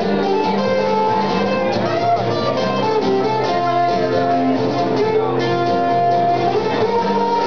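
Live guitar music from a duo, an acoustic guitar and a second guitar playing together, with held melody notes over the strummed and picked chords.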